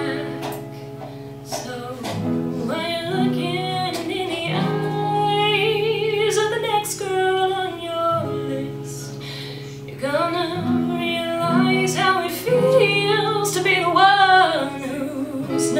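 A woman singing live while playing an acoustic guitar, her voice gliding and holding notes over sustained guitar chords.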